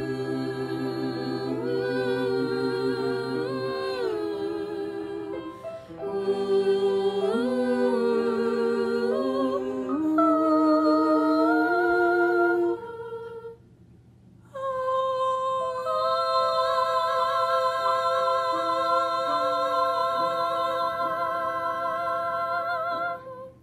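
Several voices sing without words in close harmony, moving through a series of chords. After a short break about halfway through, they hold one long chord with vibrato, which cuts off cleanly near the end.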